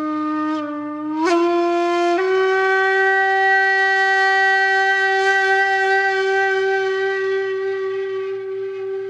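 A long, held horn-like note from a wind instrument, rich in overtones. It steps up slightly in pitch twice in the first couple of seconds, then holds steady and slowly fades.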